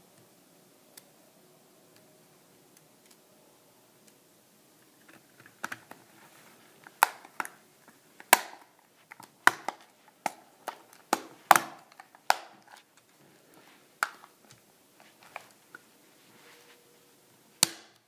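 Plastic casing halves of a URC MX900 remote control being snapped together: a dozen or more sharp clicks at irregular spacing, starting about five seconds in.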